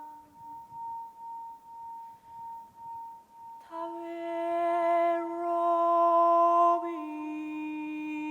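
Slow, meditative vocal music. A steady high tone rings with a slow pulsing swell. About halfway through, a voice comes in holding one long low note rich in overtones, which steps down a little near the end.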